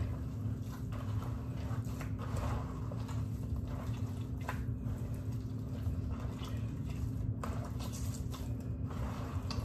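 Hands squishing and kneading a raw ground-beef meatloaf mix, wet with milk, giving soft irregular squelches. A steady low hum runs underneath.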